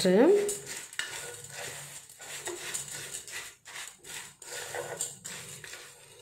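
A plastic spoon stirring a dry mix of flattened rice, grated coconut and sugar in a stainless-steel bowl: irregular scraping and rustling strokes.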